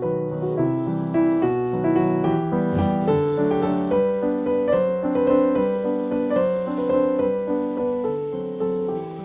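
Background piano music playing a melody over held chords.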